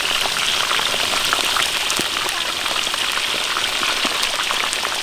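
Oil sizzling steadily with scattered small pops and crackles as whole scored fish deep-fry in a wok.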